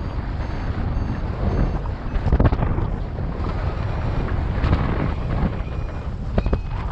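Wind buffeting the microphone during a paraglider flight: a heavy, uneven rumble that swells and eases with the gusts.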